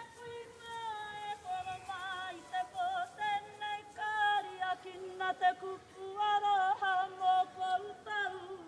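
A solo woman's voice singing long held notes that waver at their ends, a lead line in Māori kapa haka.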